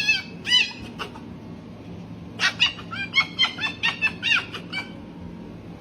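Startled pet fox giving short, high, arching chirps: two near the start, then a quick run of about a dozen from about two and a half seconds in.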